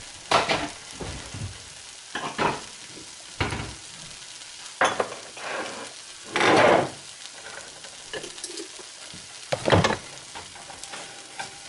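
Beans sizzling in a frying pan, stirred and scraped with a silicone spatula in irregular strokes every second or two. The loudest scrapes come a little past the middle and near the end.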